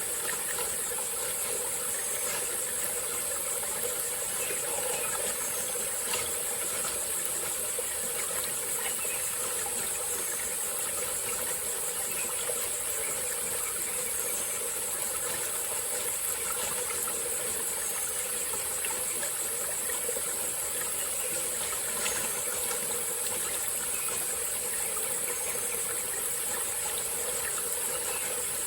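Small tropical-forest stream flowing steadily, with a constant high-pitched insect drone over the water.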